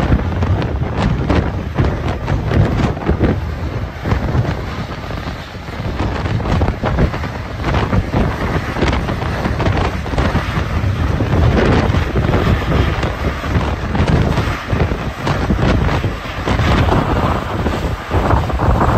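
Strong wind buffeting the microphone in loud, uneven gusts, over the running of a diesel cog railway locomotive as it pushes a passenger coach up the grade.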